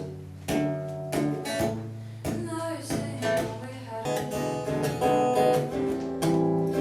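Acoustic guitar strummed in a steady rhythm of about two strokes a second, the strumming getting busier about halfway through: the instrumental part of a live song between sung lines.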